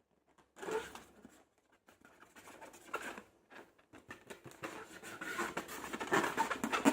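Slime being squeezed and worked by hand: a run of sticky clicks and small pops that grows denser and louder toward the end.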